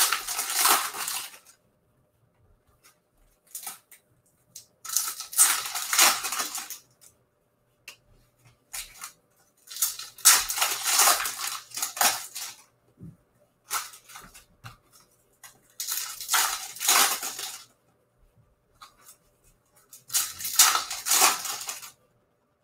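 Foil trading-card pack wrappers being torn open and crinkled by hand: five bursts of crinkling about five seconds apart, with near quiet between them.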